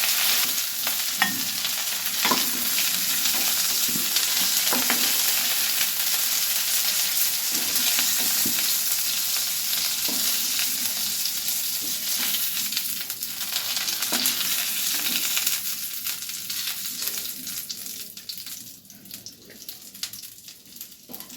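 Boneless chicken pieces shallow-frying in hot vegetable oil in a pan: a steady sizzling hiss with a few light clicks of a utensil. The sizzle thins and fades over the last few seconds as the pieces are lifted out.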